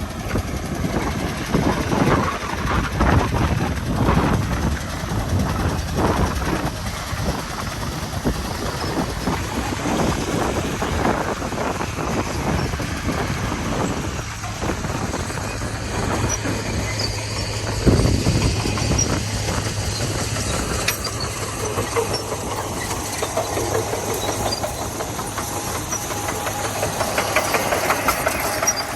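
Komatsu D41P crawler bulldozer working gravel: its diesel engine running steadily, with repeated irregular metallic clanks and knocks.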